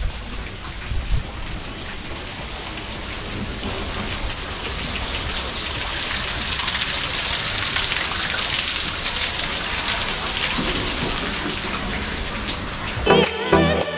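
Water splashing over rocks into a pond: a steady rushing hiss that grows louder to a peak about halfway through and eases slightly afterwards. Music with a beat comes in near the end.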